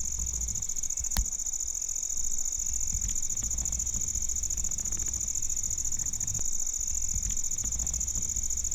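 Steady, high-pitched chorus of insects ringing without a break, over a low rumble, with one sharp click about a second in.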